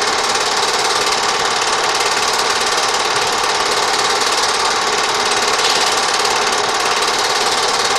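Film projector running, its film-advance and shutter mechanism clattering in a fast, steady rattle.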